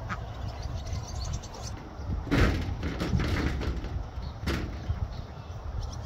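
Ducks bathing in a plastic kiddie pool: splashing and wing-flapping in the water, loudest about two and a half seconds in, with another sharp splash near four and a half seconds. Wind rumbles on the microphone throughout.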